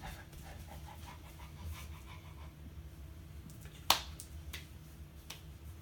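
American bully dog panting in quick, even breaths, with a sharp click a little before four seconds in and a few fainter taps after it.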